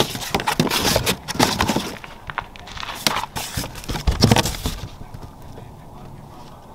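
A run of clicks, knocks and scrapes from parts being handled, which dies down about five seconds in.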